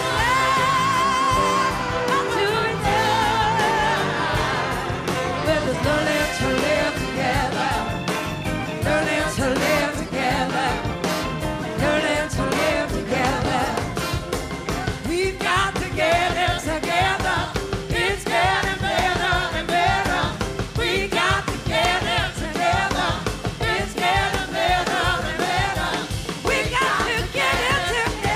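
Live rock-blues band playing, with drums keeping a steady beat and lead and backing voices singing long wavering notes.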